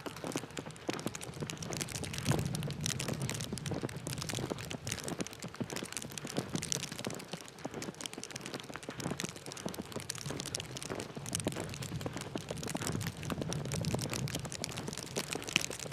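Footsteps crunching in snow, with a steady, irregular crackle of small crunches.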